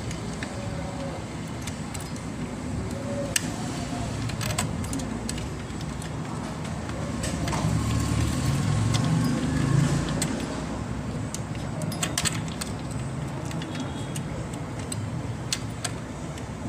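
Scattered plastic clicks and rattles from a CPU heatsink's push-pin fasteners being handled and pressed into the motherboard holes, with the pins not yet seating. A steady low hum runs underneath.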